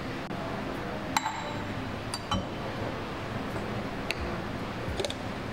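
Light clinks and taps of a glass tumbler and a wooden spoon on a stone countertop. The sharpest, about a second in, rings briefly like glass; a few softer taps follow at irregular intervals.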